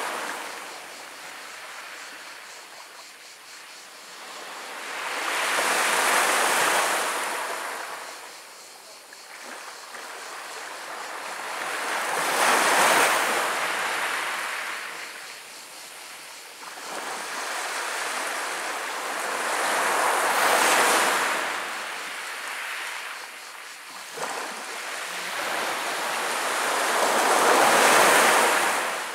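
Small Mediterranean waves breaking on a pebble beach and washing back over the stones, four swells building and falling away about seven seconds apart.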